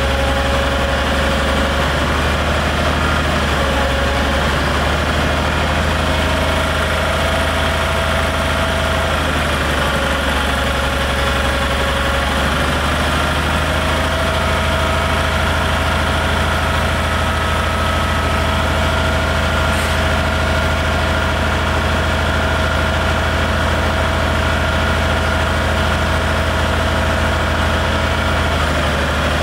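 A 2A042 42-cubic-inch military engine, a two-cylinder air-cooled unit, runs steadily, driving the excavator's hydraulic power unit. Over its low hum sits a whining tone that dips and shifts in pitch a few times.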